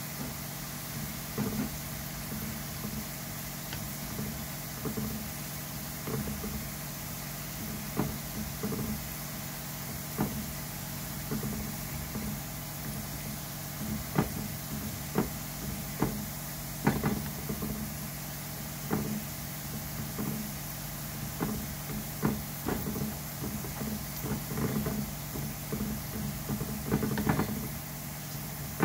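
Sliced garlic frying in oil with a steady sizzle, while a silicone spatula scrapes and knocks against the frying pan in short strokes about once a second. Under it runs a steady low hum.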